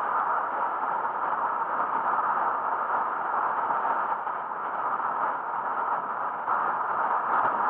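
Steady rush of wind and road noise on a bicycle-mounted action camera riding at speed, an even noise with no distinct tones or knocks.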